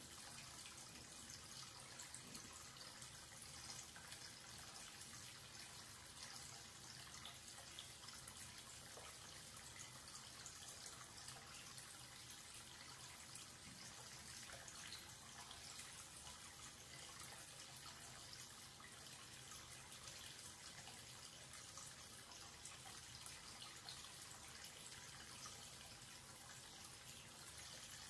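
Faint, steady sound of a wall-mounted faucet running a continuous stream into a white washbasin, splashing and trickling as the water swirls toward the open drain.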